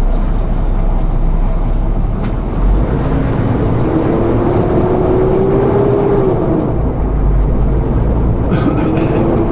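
Semi-truck's diesel engine pulling away under a steady low rumble. The engine note climbs slowly, drops off near two-thirds of the way through as a gear change, then climbs again.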